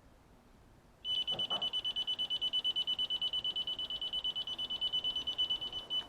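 Electronic refrigerant leak detector alarming at the evaporator coil: a high-pitched, rapidly pulsing beep that starts about a second in and runs for about five seconds, the sign that it has picked up leaking refrigerant.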